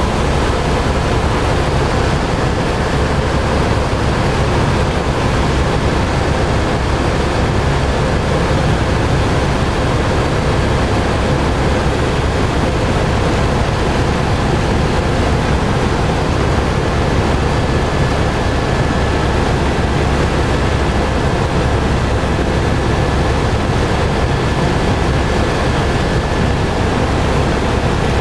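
Steady rumbling, rushing noise of a moving vehicle, with a faint steady high tone running through it.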